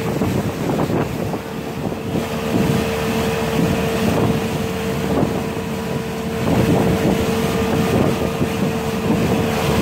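Pontoon boat under way, its motor running with a steady drone and one constant tone, while water rushes along the hull and wind buffets the microphone.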